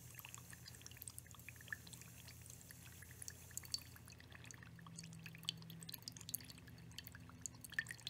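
A thin trickle of water from a small plastic outlet tube splashing into a ceramic bowl of water, with many small irregular drips and splashes: an automatic waterer's valve open at low pressure, refilling the bowl. A faint steady low hum runs underneath.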